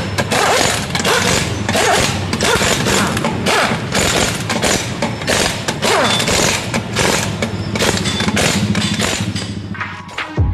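Loud electronic intro music with heavy thumping, crashing hits several times a second. It changes to a sparser sound with steady tones near the end.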